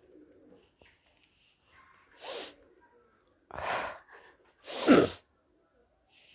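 Three short, noisy bursts of breath and voice from a woman, about a second apart, each louder than the last.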